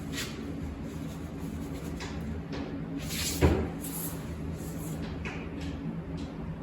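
Steady low drone from a 2010 Toyota Corolla's worn rear wheel bearing, the hub assembly's bearing gone bad. A single sharp thump, like a door or panel shutting, comes about halfway through.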